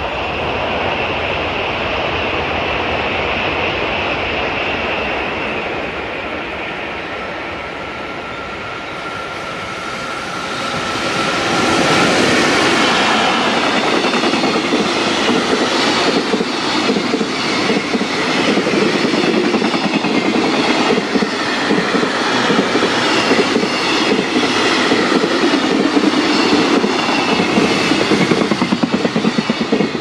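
JR Freight EF65 electric locomotive passing, with a high steady whine in the first seconds. A long train of container wagons follows at speed, its wheels clicking rhythmically over the rail joints, growing louder about twelve seconds in.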